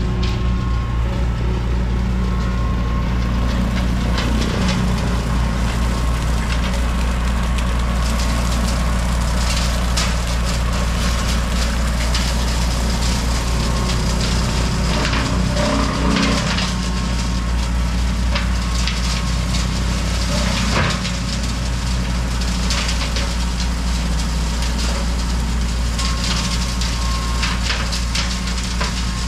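Tractor engine running steadily under load while its rotary cutter (bush hog) chops through brush, briars and small saplings. Frequent cracking and snapping of wood comes from the spinning blades throughout.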